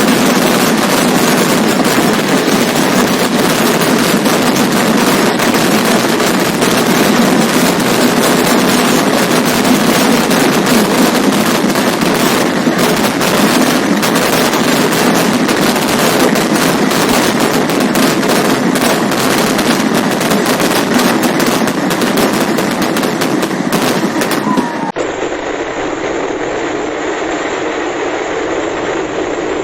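Vedikettu fireworks: a dense, continuous barrage of rapid firecracker explosions. About 25 seconds in it cuts off suddenly, and a steadier, duller noise follows.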